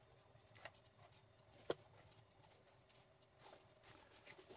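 Near silence with a few faint, scattered clicks and light knocks, the sharpest a single click just under two seconds in.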